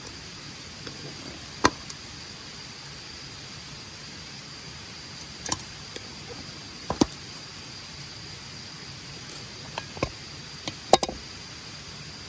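Campfire wood crackling: scattered sharp pops, the loudest near the end, over a steady hiss. A steady high insect trill runs underneath.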